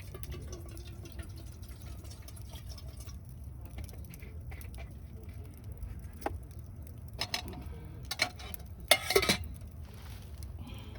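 Camp cookware being handled: a few clinks and knocks, the loudest a short clatter about nine seconds in, over a steady low rumble.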